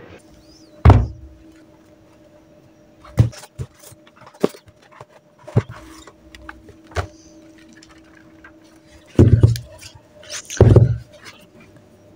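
Cambridge IELTS books being handled and set down on a desk: a series of irregular thuds and knocks, the two loudest near the end, over a faint steady hum.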